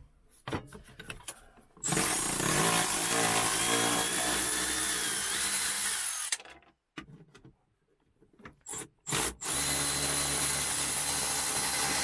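Milwaukee Fuel brushless cordless ratchet running in two long runs of about four seconds each, spinning out the bolts that hold the engine cover. Between the runs there is a short pause with two brief blips of the motor.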